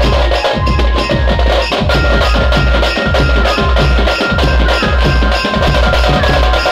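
Loud street-band music from a procession band: fast, driving drumming on a large stick-beaten drum over a heavy bass beat from the vehicle's speakers, with a high held melody stepping from note to note.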